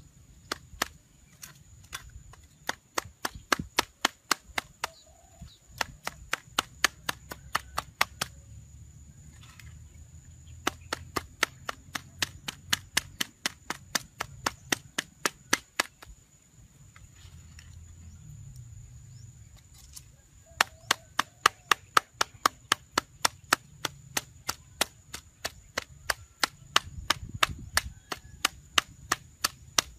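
Rapid chopping with a blade, sharp knocks several a second in long runs broken by short pauses, over a faint steady high-pitched tone.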